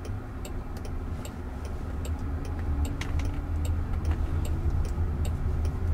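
Turn-signal indicator ticking steadily and evenly inside the cabin of a Waymo Jaguar I-Pace electric car, over a low rumble of tyre and road noise as it drives.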